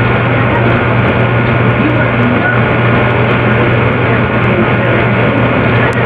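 A loud, steady low drone with a dense hiss-like noise over it, unchanging throughout.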